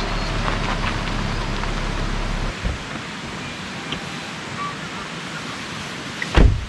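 Steady outdoor noise like wind or rain. A low hum stops about two and a half seconds in, and a loud thump comes near the end.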